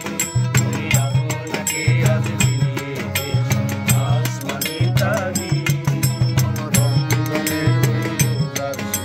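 Bengali folk song played on harmonium, acoustic guitar and mandolin, with a dhol beating a steady rhythm about twice a second and a man singing.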